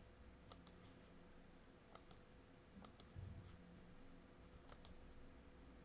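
Near silence with faint, sharp clicks, mostly in quick pairs, four or five times, and one soft low thump a little past the middle.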